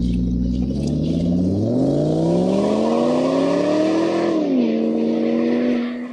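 Combustion engine idling, then revving up smoothly over about three seconds, dropping back to a steady idle and fading out near the end.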